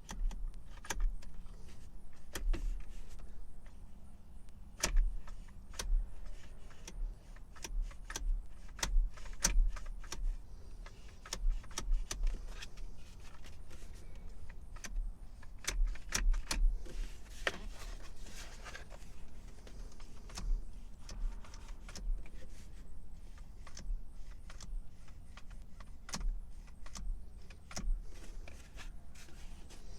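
Irregular clicks, rattles and knocks of a seatbelt retractor's metal parts being handled and worked to free its jammed lock, with dull thumps of handling throughout.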